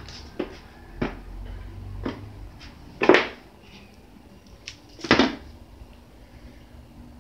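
A kitten jumping and landing on a wooden floor: a run of paw thumps and scuffs, with two louder landings about three and five seconds in.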